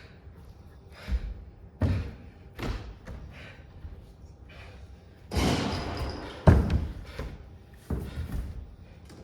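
A series of heavy thuds and knocks. A longer crashing rush comes about five and a half seconds in, cut off by the loudest slam.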